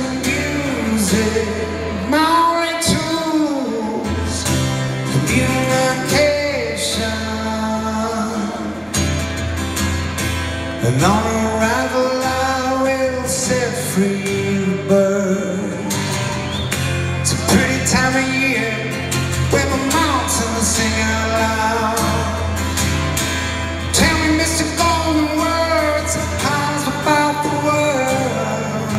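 Solo male voice singing long, held notes that slide in pitch, over an acoustic guitar, amplified through the PA of a large arena.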